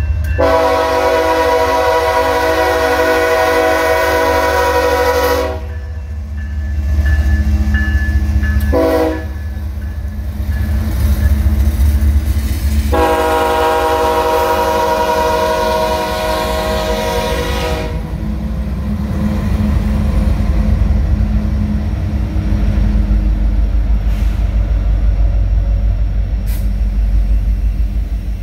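Norfolk Southern 8099, the Southern Railway heritage GE ES44AC, leading a freight past: its air horn sounds a long blast, a short one about nine seconds in, and another long blast ending about 18 seconds in, over the deep rumble of the diesel locomotives. After that comes the rumble of the double-stack cars rolling by.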